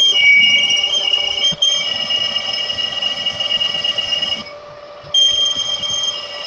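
Metal lathe turning an aluminium pulley, the cutting tool squealing on the spinning rim as a steady high-pitched whine over the machine's running noise. The whine drops away briefly about four and a half seconds in, then comes back.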